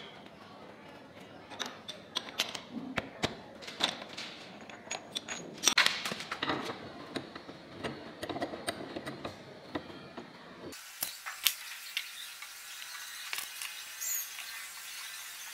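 Scattered light metallic clicks and clinks as a small steel part is handled and set into a bench vise. About two-thirds of the way in, a hand tap in a tap wrench is turned into the part, cutting a thread, with a few clicks and faint high squeaks.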